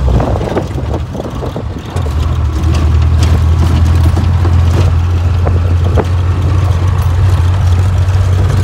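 Classic Land Rover's engine running while it drives over a rough, rocky dirt track, heard from inside the cab, with occasional knocks and rattles as it jolts over the bumps. The engine note is softer for the first two seconds, then comes back strong and steady.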